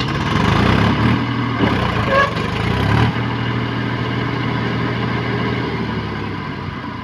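Mahindra tractor's diesel engine running hard as the tractor pulls through deep mud. It is loudest over the first three seconds, then settles to a steadier, slowly easing note.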